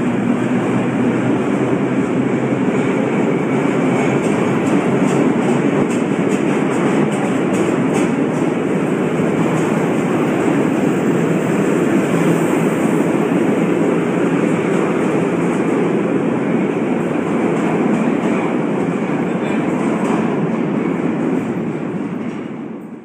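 Vintage R1–R9 "Arnine" subway train running along a station platform: a loud, steady rumble of wheels on rail that fades out at the very end.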